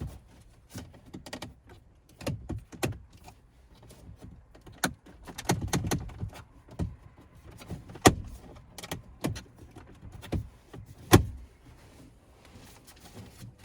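Plastic interior trim pieces of a truck cab being pried and handled: scattered clicks, knocks and rustling, with sharp snaps about 5, 8 and 11 seconds in.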